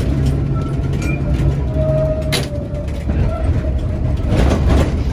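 London Transport tram 1858, a 1930 EMB/English Electric double-decker, running on the line, heard from inside the car: a steady low rumble with a thin whine, a sharp click about two and a half seconds in, and a rush of noise near the end.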